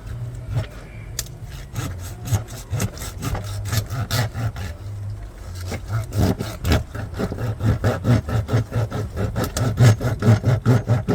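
Knife rasping back and forth on a large jack fish in quick repeated strokes, about three or four a second, getting louder about halfway through, over a steady low hum.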